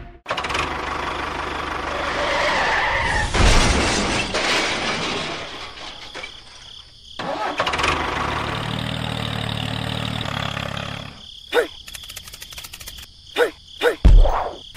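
An engine running steadily for a few seconds, after a loud rushing noise with a thump. Sharp clicks and short squeaks follow near the end.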